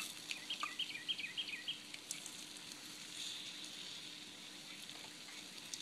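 Pork chops in barbecue sauce sizzling on a grill, with scattered crackles over a steady hiss. Early on, a bird sings a quick run of about eight short falling notes.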